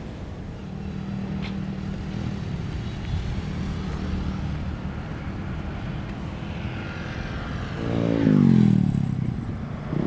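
Road traffic under a steady low rumble. About eight seconds in, a motor vehicle passes close by, its engine note falling in pitch as it goes past.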